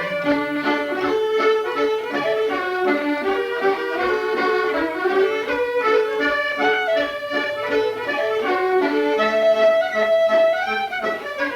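Accordion playing a tune, a quick-moving melody over held notes.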